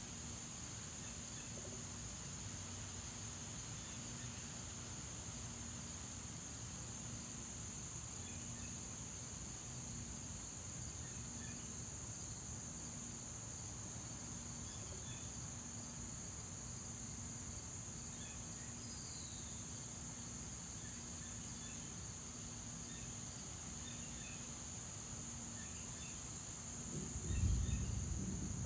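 Steady late-summer insect chorus of crickets, a continuous high-pitched drone, with a faint low hum pulsing about once a second beneath it. Near the end a brief low-pitched rumble swells up and fades.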